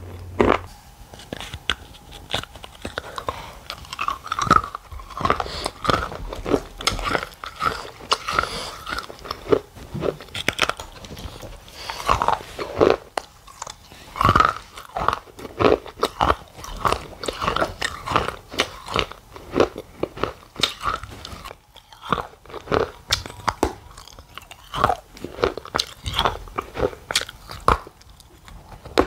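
Close-miked biting and chewing of a hard, brittle food, with many sharp crunches in quick succession.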